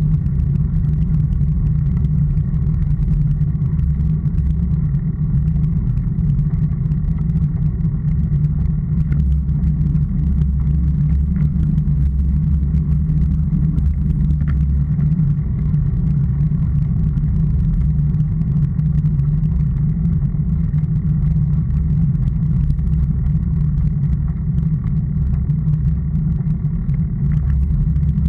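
Steady low rumble of wind buffeting and tyre noise from a camera mounted on a road bicycle riding along asphalt.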